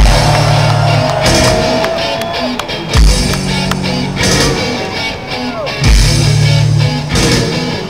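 Heavy metal band playing live in a stadium with crowd noise. Big chord and drum hits land about every three seconds and ring out between them.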